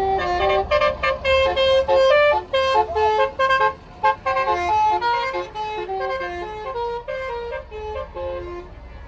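Bus 'telolet' musical air horn playing a quick tune of stepped notes over a low rumble. The tune stops shortly before the end.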